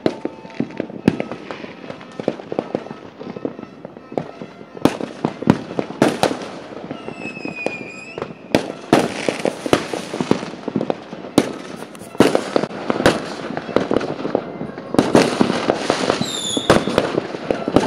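Many fireworks going off at once: a dense run of bangs and crackling pops, with the heaviest cluster in the last few seconds. A whistling firework sounds twice, its tone sliding slightly downward, about seven seconds in and again near the end.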